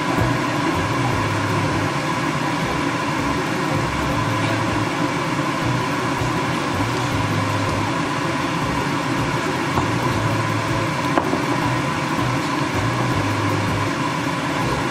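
Food with tomato sauce sizzling steadily in a hot non-stick frying pan as it is stirred with a wooden spatula.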